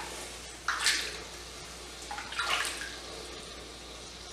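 Water splashed by hand over a hot casting flask standing in a basin, cooling the freshly poured pewter before it is quenched. There are two splashes, about a second in and about halfway through.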